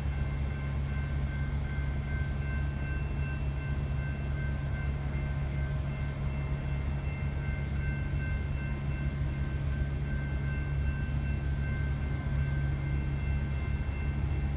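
Approaching BNSF coal train heard from afar: a steady low rumble of its diesel locomotives, with a few faint steady high tones above it.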